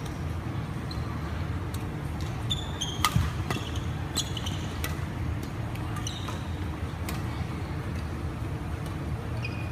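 Badminton rally: a string of sharp racket-on-shuttlecock hits, the loudest just over three seconds in, with short squeaks of court shoes on the wooden floor. A steady low rumble runs underneath.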